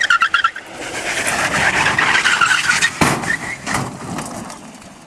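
Homemade gravity racing cart running fast down asphalt, its tyres squealing through the bend. There is a sharp knock about three seconds in, and the sound fades away toward the end.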